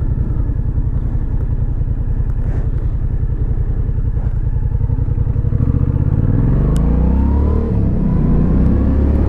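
Yamaha FZ-07 parallel-twin motorcycle engine running at low revs with a rapid, even firing pulse. About six seconds in it accelerates, its pitch rising.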